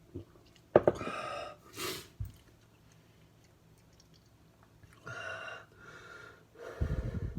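A man gasping and blowing out hard through his mouth in separate breathy bursts, a sharp one about a second in and several more near the end, reacting to the heat of a chocolate jigsaw chilli pod burning his tongue.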